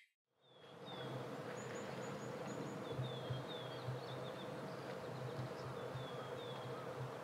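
Outdoor ambience: a steady hiss of open-air background noise fading in after a brief silence, with a bird giving several runs of short, high chirps.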